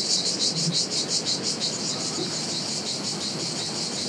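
Cicadas singing: a high, pulsing buzz at about six pulses a second that evens out into a steadier drone after about a second and a half.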